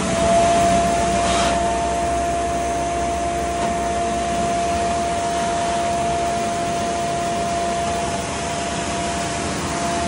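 Vac-Con three-stage vacuum fan on a sewer vacuum/jetter truck, driven by its Deutz six-cylinder pony motor, running at speed and pulling air through the large suction hose. It makes a steady whine over a heavy rush of air.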